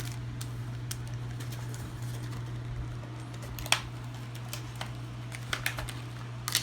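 Light clicks and taps of plastic packaging and cards being handled, with one sharper click about four seconds in, over a steady low hum.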